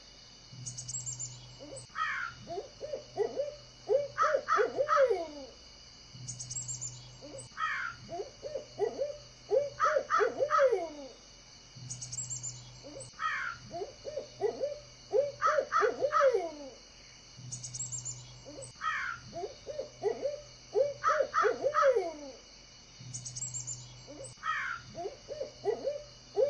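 Bird calls in a loop: clusters of three or four falling, caw-like calls with a quick high trill, the same pattern repeating about every six seconds over a steady high hum.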